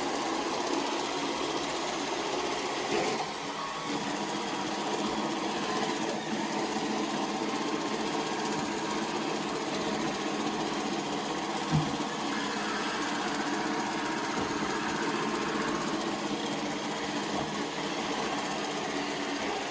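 iRobot Roomba Combo robot vacuum running: a steady whir of its motor and brushes, with a short knock about midway as it bumps into something.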